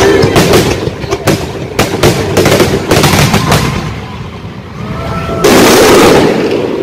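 Fireworks finale: a rapid string of loud aerial shell bangs over the first three and a half seconds, then a rumble dying away. Near the end comes about a second of loud, dense noise.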